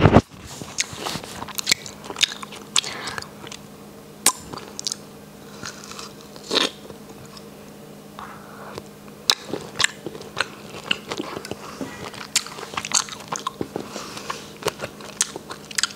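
A person eating fresh fruit close to the microphone: wet bites and chewing, with many short, sharp smacking clicks.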